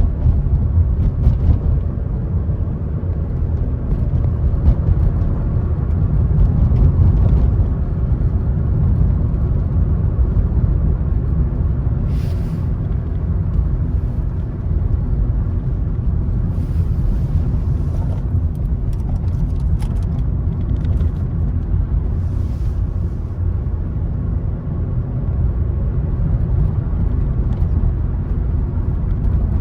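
Car driving along a road: a steady low rumble of tyres and engine, with a few short hisses near the middle.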